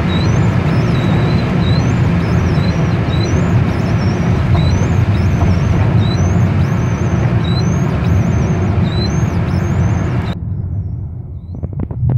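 Nissan QX's 3.0-litre V6 running at about 3,500 rpm at motorway speed, heard inside the cabin as a steady engine drone mixed with road and wind noise. About ten seconds in the sound suddenly turns duller and quieter, with a few sharp knocks.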